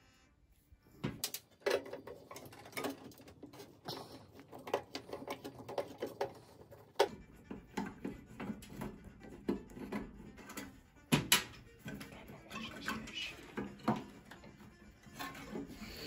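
Irregular clicks, knocks and rattles of a scrap microwave oven's metal and plastic parts being handled and pulled apart by hand, starting about a second in.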